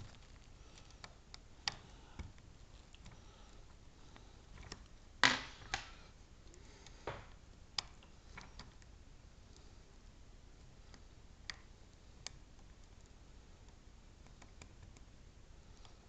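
Scattered light clicks and scrapes of a metal lock pick and tension wrench working the pins in the keyway of a brass Mila Evolution euro cylinder, at irregular intervals; the loudest is a short scrape about five seconds in.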